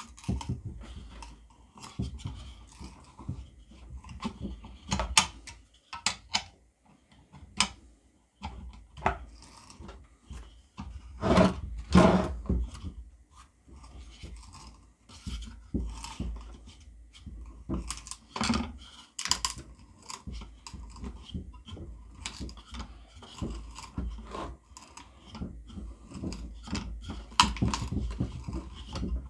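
A knife's flat paddle bit being turned by hand in soft pine wood: irregular scraping and rubbing with knocks of wood and metal, loudest in a pair of knocks about halfway through.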